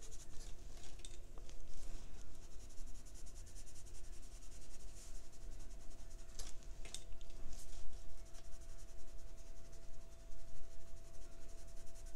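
Soft scratching of a wet paintbrush stroked across Bristol paper, blending green watercolor into yellow, with a couple of brief sharper scratches a little past halfway. A faint steady hum runs underneath.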